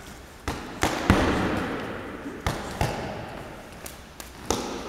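Half a dozen sharp knocks and slaps of two men sparring, arms striking and blocking and feet stamping on the floor, irregularly spaced and echoing in a large sports hall.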